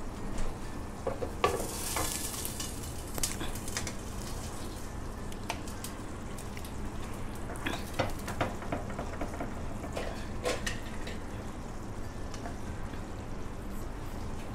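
Tomato gravy sizzling in a nonstick pan around a whole fried chicken. A steel ladle scrapes and taps against the pan now and then as the sauce is spooned over the chicken.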